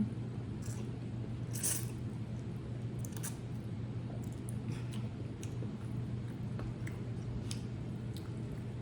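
Someone eating instant ramen noodles: scattered short wet mouth clicks and chewing sounds over a steady low hum.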